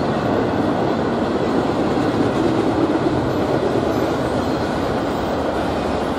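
Double-stack intermodal freight train passing, its container cars rolling by with the steady noise of steel wheels on rail.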